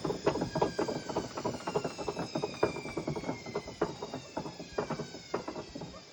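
Indesit Innex BWD71453 washing machine winding down from a spin: the motor and drum whine falls slowly in pitch while rapid knocking and rattling from the drum grows sparser and quieter as it slows.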